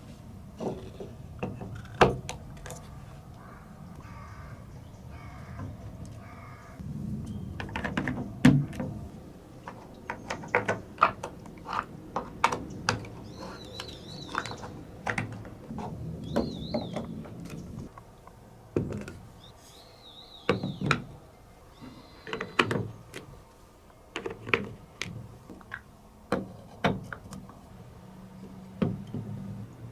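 Balls rolling down a TrixTrack toy marble run's wave-slope steps: a low rolling rumble broken by irregular clacks as they drop from step to step. A faint wavering high tone comes and goes now and then.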